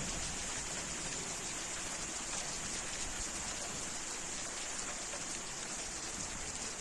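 Heavy rain downpour: a steady, even hiss of rain falling on the ground and nearby surfaces.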